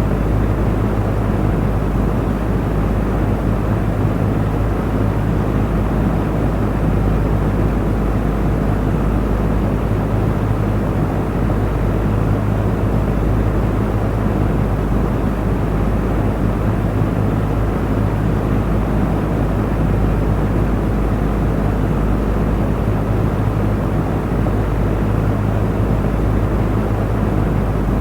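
Electric fan running steadily: an even whooshing rush of moving air with a constant low hum underneath.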